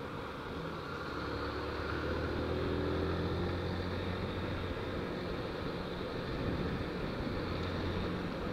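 Small motorcycle engine running as the bike rolls through traffic, its note rising a little about a second or two in and then holding steady.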